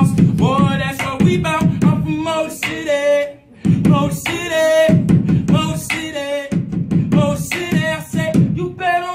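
A man rapping a cappella, his voice in continuous phrases with a short pause about three and a half seconds in, over a beat he taps out with a pen, heard as a steady run of sharp clicks.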